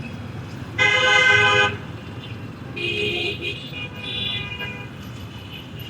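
Vehicle horns honking in city traffic: one loud horn blast about a second in, lasting nearly a second, then two fainter, shorter horns around three and four seconds in, over a steady low rumble of engines.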